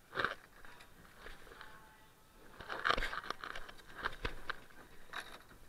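Water shoes scuffing and crunching on barnacle-covered shore rocks, mixed with rustles and knocks of gear. The sounds come in irregular bursts, the loudest about three seconds in, with a sharp knock a second later.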